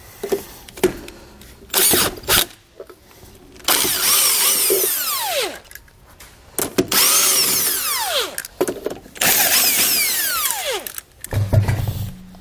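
Cordless impact wrench spinning lug nuts off a trailer wheel's studs, in four runs of one to two seconds, each ending with the pitch falling as the motor spins down. A low thump near the end.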